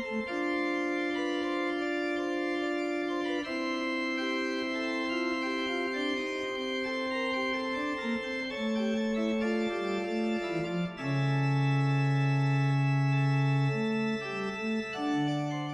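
Organ music playing slow, held chords that change every second or so, with a low bass note coming in about eleven seconds in and holding for a few seconds.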